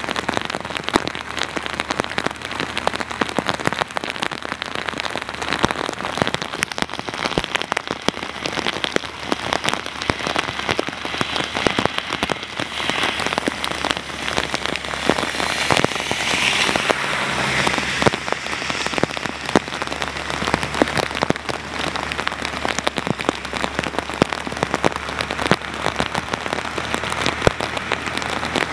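Torrential rain pouring down, with many drops pattering close by. About halfway through, a swell of hiss from a vehicle passing on the wet road.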